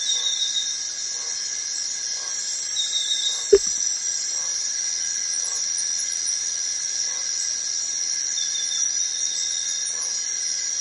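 Forest insects chirring steadily in several high tones, with one sharp knock about three and a half seconds in.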